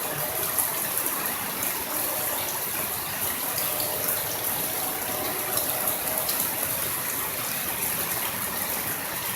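Torrential rain pouring down steadily, a dense even hiss with scattered ticks of drops striking close by.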